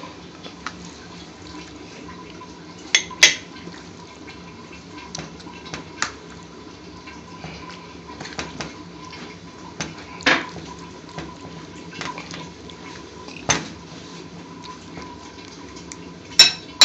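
Scattered clinks and knocks of ceramic dishes as a white bowl and plate are handled to serve the chutney: about half a dozen sharp ones a few seconds apart, over a steady low background hum.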